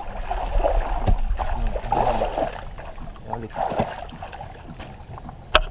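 Shallow muddy pond water splashing and sloshing around a person wading through it, swelling in several surges, with a sharp click near the end.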